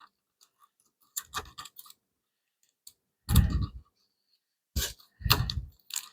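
Handling noises from working on an opened flat-screen TV's boards and cables: small clicks and rustles, then several louder dull bumps and scrapes, the loudest about three seconds in.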